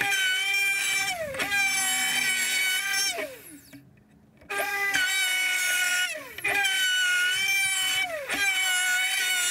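Electric plunge router on a circle-cutting jig, whining at high speed while cutting a wooden ring, in a series of short runs. Each run ends with the pitch sliding down, and the router falls nearly silent for about a second midway.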